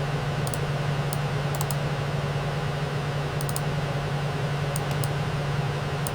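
Steady machine hum with a hiss over it and a few scattered light clicks.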